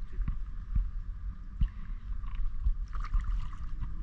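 Sea water sloshing and bubbling around a camera held at or just under the surface, muffled and heavy at the low end, with irregular low knocks as a gloved hand moves through the water.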